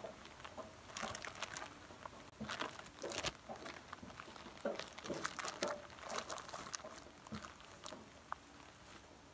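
Bubble wrap and plastic packaging crinkling and rustling as they are handled and unwrapped, in irregular crackles and bursts with short pauses between.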